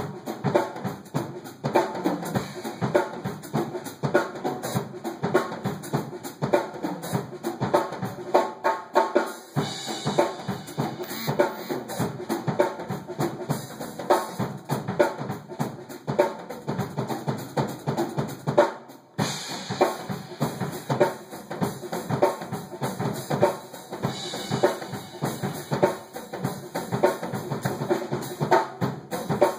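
Acoustic drum kit played live in a fast, busy groove of bass drum, snare, toms and cymbals, dense strokes throughout. The playing stops for a moment about nineteen seconds in, then comes straight back.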